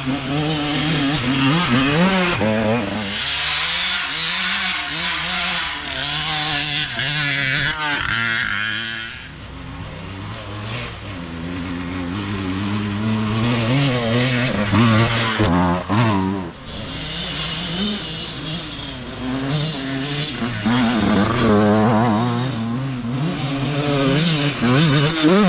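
Youth dirt bike engines revving hard on a trail as riders come through one after another, the engine note climbing and dropping with each throttle change. The sound eases briefly about a third of the way in, then builds again as the next bikes approach.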